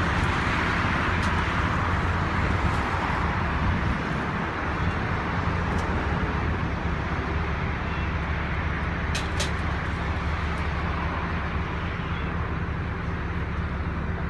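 Diesel engine of a fire brigade aerial ladder truck running steadily, a constant low hum with a hiss above it.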